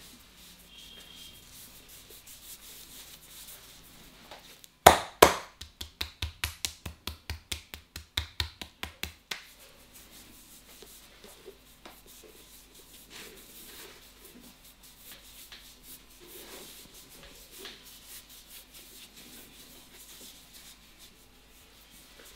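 Hands rubbing and kneading skin and hair during a head massage. About five seconds in comes a run of sharp hand slaps, two loud ones and then about fifteen more at roughly four a second, for some four seconds, before the soft rubbing carries on.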